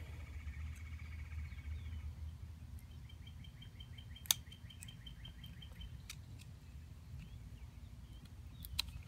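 A bird trilling: a quick run of repeated high notes in the first two seconds and again from about three to six seconds in, over a low steady rumble. Two sharp clicks from the hand carving of a small wooden fork, one about four seconds in and one near the end.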